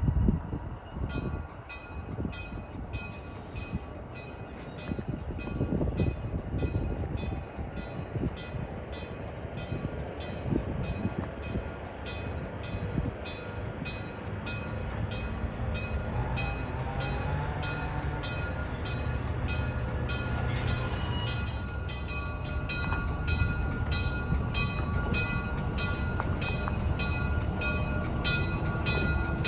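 A train running past with a heavy low rumble. Over it, a high ringing repeats evenly about three times a second.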